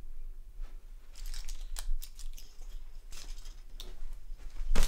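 Scattered soft rustles and small clicks of things being handled and moved, over a low steady hum.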